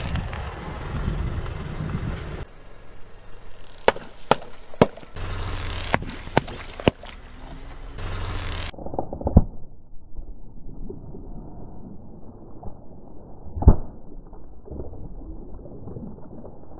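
Car tyre crunching crisp, dry crispbread under its weight, with a run of sharp cracks as the pieces snap. Then, in duller sound, soda-filled water balloons are squashed under the tyre, with scattered knocks, one loud pop of a balloon bursting and liquid splashing.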